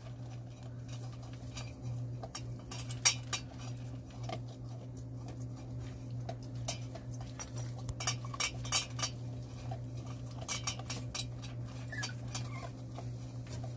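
Jindo puppies scrambling about and climbing over a low wooden board, making scattered light clicks and taps, irregular and now and then louder, over a steady low hum.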